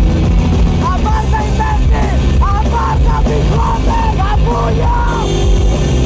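Loud rock music with a heavy, steady bass, and men's voices yelling over it.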